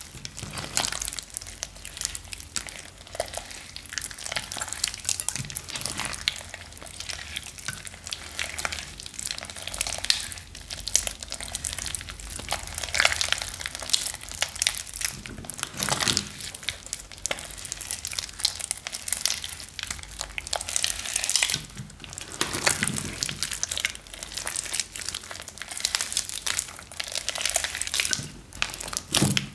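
Fluffy pink slime mixed with foam beads being kneaded and stretched by hand, squishing and crackling with a dense run of small clicks and pops that swells in bunches as it is pulled and folded.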